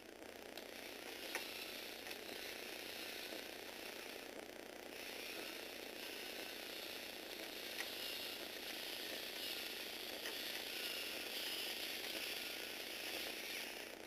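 Tamiya Universal Gearbox motor and Lego Technic gear train running steadily with a whirring, ratcheting sound as the eight-legged Lego robot's legs walk, with an occasional sharp click.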